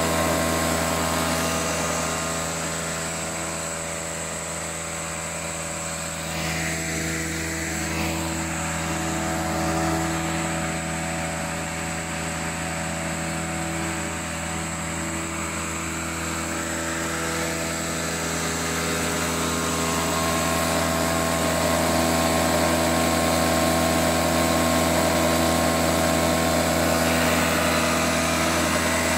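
Robin EC10 single-cylinder two-stroke lawnmower engine running steadily with its spark plug lead disconnected. It keeps firing without spark, which the owner suspects is glowing carbon igniting the fuel mix. It grows somewhat quieter a couple of seconds in and louder again after about twenty seconds.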